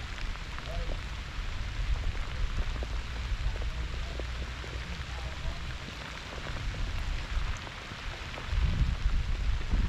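Heavy rain falling steadily, an even hiss of pattering drops, with a low rumble underneath that grows louder near the end.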